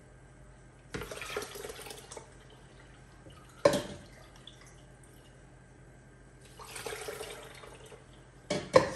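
Steeped sorrel liquid poured from a mug through a plastic mesh strainer into a plastic jug, in two pours: one about a second in and one near seven seconds. A sharp knock comes in between and a couple of clinks near the end, as the mug is dipped back into the steel pot.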